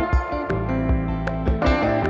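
Background instrumental music: plucked notes over held low bass notes.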